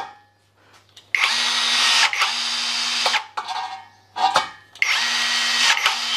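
Cordless 18 V battery rivet gun, a Makita-battery replica, running its motor twice for about two seconds each as it pulls a 4 mm pop rivet, with a short dip partway through the first run and a brief click between the two runs.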